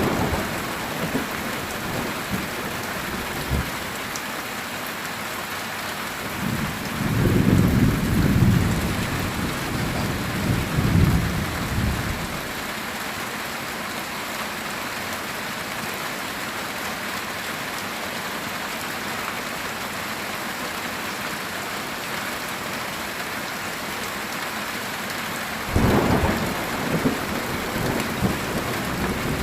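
Heavy rain drumming steadily on a metal tin roof, with a long rolling rumble of thunder swelling up about a quarter of the way in and a second, more sudden thunder rumble near the end.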